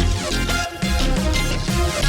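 Electronic background music with a heavy, steady beat.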